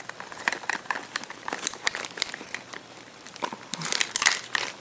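Rustling and crinkling with many small, sharp clicks and taps, thickest near the end, as a kitten paws and grabs at makeup and other small items.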